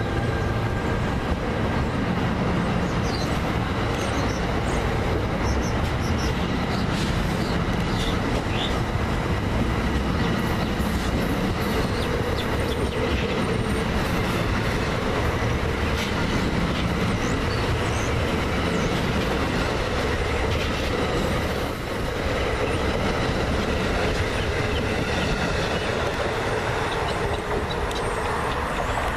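NJ Transit Multilevel double-deck passenger coaches, behind an ALP-46A electric locomotive, passing close by at speed: a steady rush and rumble of steel wheels on the rails.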